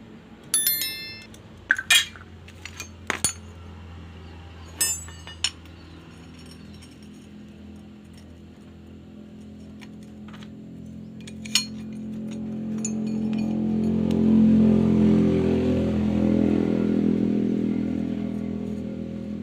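Metal tools clinking and ringing against the metal gear case of a brush cutter's blade head as it is taken apart: several sharp clinks in the first six seconds and one more near the middle. From about twelve seconds an engine hum grows louder and then fades, like a passing motor vehicle.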